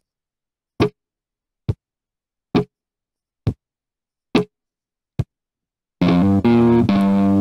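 An axe chopping into a wooden log: about seven sharp strikes, evenly spaced a little under a second apart, with dead silence between them. About six seconds in, music with guitar and bass starts.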